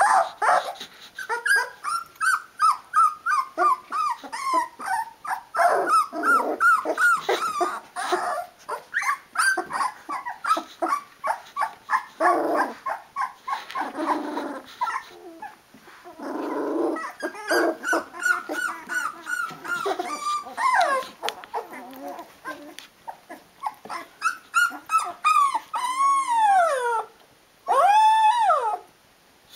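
Sixteen-day-old Rhodesian Ridgeback puppies whining and squealing over and over, calling for their mother to feed them. Near the end come two longer cries that rise and then fall.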